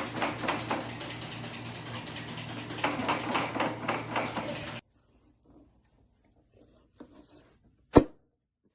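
Background music with a steady beat that cuts off suddenly about five seconds in. A few faint small handling sounds follow, then one sharp knock near the end.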